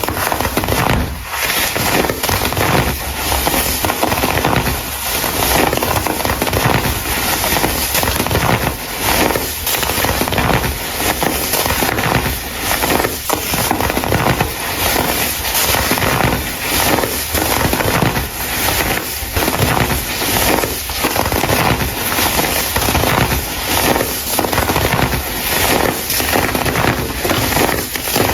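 Baking soda crumble being crushed and crumbled, a dense, continuous crunching crackle of many small cracks.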